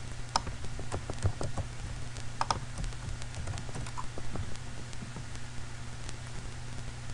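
Computer keyboard and mouse clicking: a quick run of key presses and clicks in the first couple of seconds, then a few scattered clicks, over a steady low hum.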